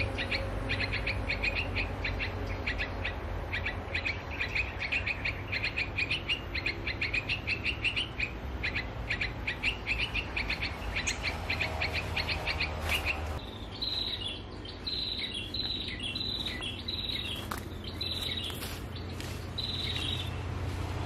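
Small songbirds calling: a fast run of sharp chips for the first half, then a series of short, high, down-slurred notes repeated about once a second, over a steady low rumble.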